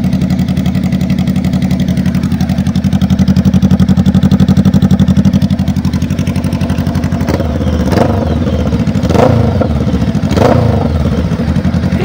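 Venturi 500 motorcycle engine running at idle with a steady exhaust beat. It swells louder for a couple of seconds in the middle. Later it turns rougher, with a few short, sharp bursts.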